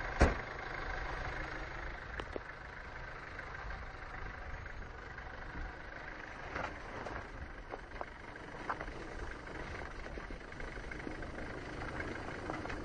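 Off-road 4x4 SUV's engine running at low revs as it creeps down a steep forest track, faint and steady. A single sharp click about a third of a second in, and a few faint clicks later.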